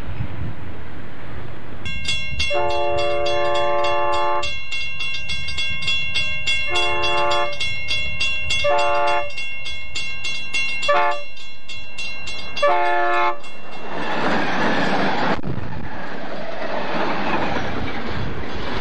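Santa Fe diesel freight locomotive's air horn sounding a multi-note chord in five blasts, one long and four shorter, over a steady high whine. The horn then stops and the train passes close, its wheels and cars giving a loud rushing rumble.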